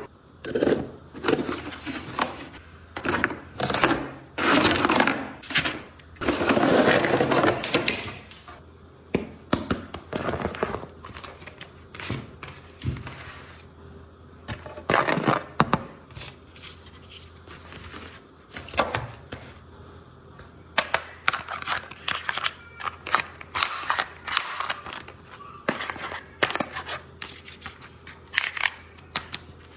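Irregular handling noises of a toy and its packaging being unboxed: knocks, scrapes and short rustles, coming thick at first and then as sparser clicks and taps.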